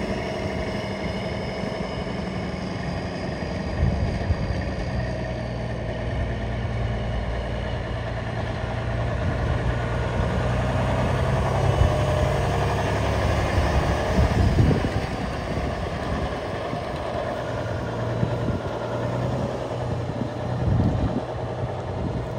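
1994 Kenworth T800 heavy-truck diesel engine running as the bobtail tractor drives a slow loop. The engine grows louder about halfway through as the truck comes round toward the listener, loudest a little after that, then eases off as it pulls away.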